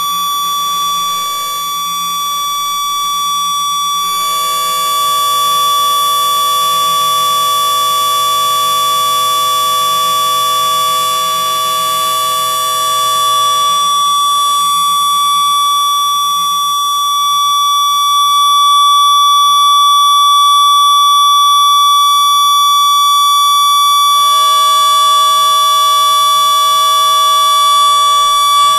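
Electronic drone of steady pure tones from a live electronics rig: one loud high tone held throughout, with lower tones layered in about four seconds in, dropping out around fourteen seconds, and coming back near the end.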